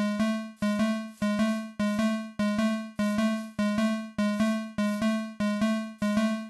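Fire alarm chime sounding one pitch over and over at an even pace, about five strikes every three seconds. Each strike is a sharp click followed by a fading ring.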